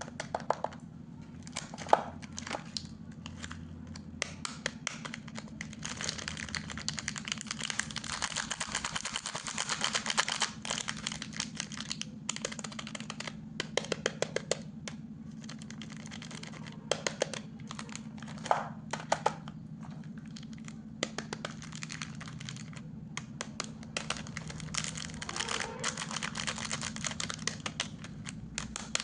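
Plastic biscuit packet wrapper crinkling and crackling as it is handled and opened, in many sharp irregular clicks with a dense stretch of crackling about six to eleven seconds in. A low steady hum runs underneath.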